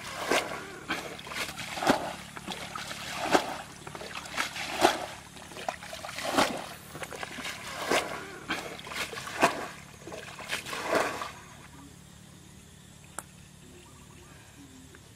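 Shallow ditch water being scooped and flung out with a bucket, one splash about every second and a half, as the ditch is bailed out to get at the fish. The splashing stops about eleven seconds in.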